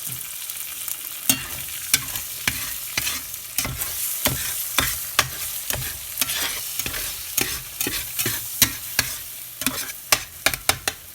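Eggs and lobster mushrooms frying in avocado oil and butter, with a steady sizzle. A utensil stirs them, tapping and scraping against the frying pan many times at an irregular pace.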